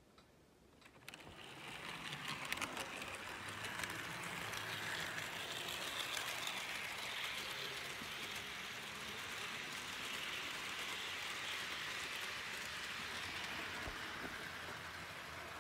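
HO-scale model train, a Lima FS D342 diesel locomotive pulling Rivarossi coaches, running on the track: a steady rolling rattle and whir of the wheels and motor, full of small rapid clicks, starting about a second in.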